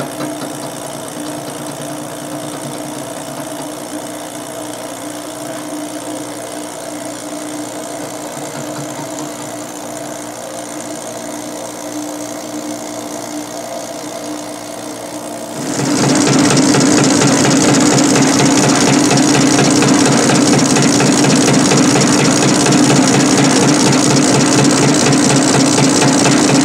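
Milling machine spindle running a shell mill with a steady hum. A little over halfway through, the cutter bites into the metal plate and a much louder, hissing cutting noise sets in and holds steady as the mill faces the plate down.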